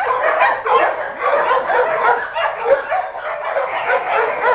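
Many kennel dogs barking and yipping at once, a continuous overlapping din with no pauses.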